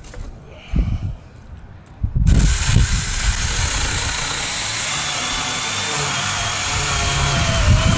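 Cordless 24 V mini chainsaw starting about two seconds in and cutting through a tree branch, its motor and chain running steadily in the cut. Before it starts there are two dull thumps.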